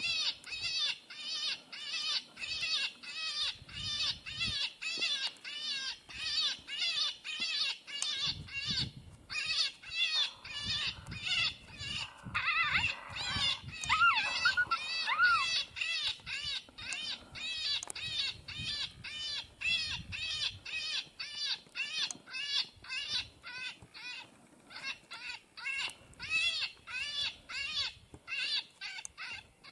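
Electronic predator call playing a looped distress sound: short, high, arched squeals repeating evenly about two to three times a second, with a louder run of rising squeals around the middle.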